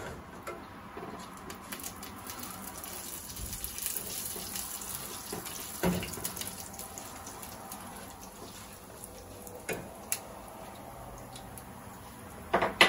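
Whole spices (cinnamon, cardamom, cumin seeds, cloves, black peppercorns) sizzling and crackling in hot olive oil in a nonstick pan, stirred with a silicone spatula. There are a few light knocks of the spatula against the pan, the loudest near the end.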